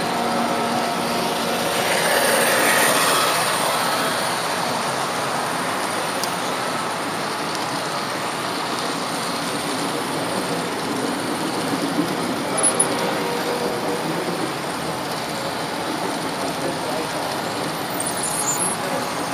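Model electric train running along the track, heard from on board: a continuous rattle and rumble of the wheels and motor, swelling louder for a moment about two seconds in.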